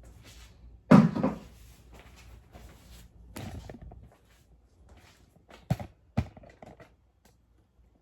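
Knocks and thuds of things being moved about in a kitchen: one heavy thud about a second in, a lighter knock a few seconds later, then two sharp clicks.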